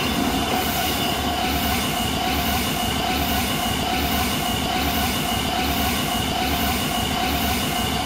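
A train passing at speed: a steady rumble and clatter of wheels on rails, with a steady high squeal of wheels over it.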